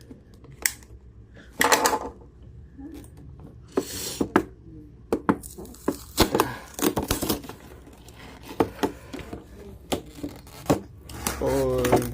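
A toy's retail packaging being cut and worked open with a safety knife: irregular scraping, crinkling and sharp clicks.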